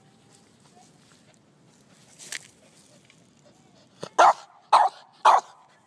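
Small dog barking three times in quick succession, sharp barks about half a second apart near the end, after a fainter short sound about two seconds in. The dog is barking defensively at ants in the lawn.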